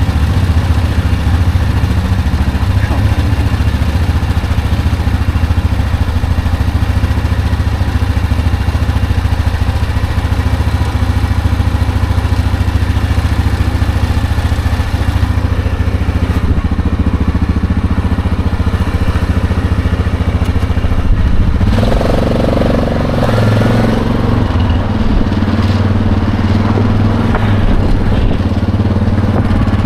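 ATV engine idling steadily, then, about two-thirds of the way through, revving as the quad pulls away, its engine speed rising and falling as it rides.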